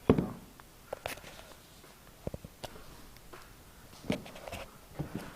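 Handling noises: a sharp knock at the start, then scattered light taps, clicks and rustles as a shoe is turned over and handled.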